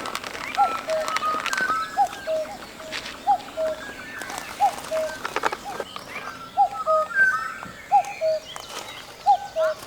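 Birds calling outdoors: a two-note call, a higher note dropping to a lower one, repeats about every second and a half, with higher chirps from other birds between. A few light clicks are mixed in.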